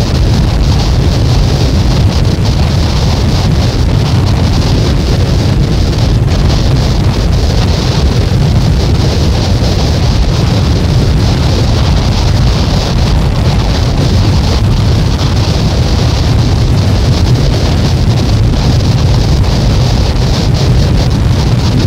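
Noise music track: a loud, unchanging wall of noise, a deep rumble under a band of hiss, with no beat or melody.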